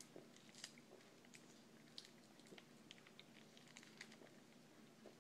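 Faint, scattered mouth clicks and small sips of someone drinking from a Capri Sun juice pouch through its straw.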